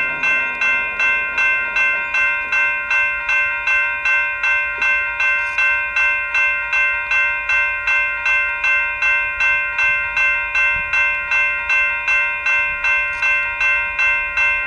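Railroad grade crossing bell ringing steadily at an even level, about two and a half strikes a second, with the faint low rumble of an approaching diesel freight train underneath.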